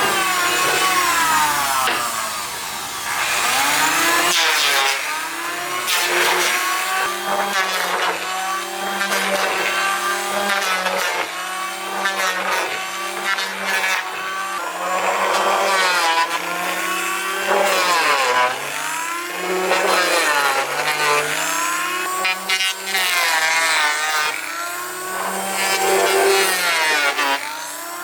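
Power tool running and cutting into wood, its motor pitch sagging under load and picking up again every second or two, with a rasping cutting noise over it.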